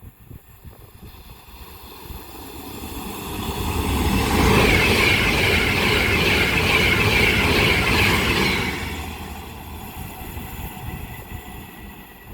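Avanti West Coast Class 390 Pendolino electric train passing through the station at speed. It builds up, is loudest for about five seconds with a high steady whine over the rush of the train, then fades away.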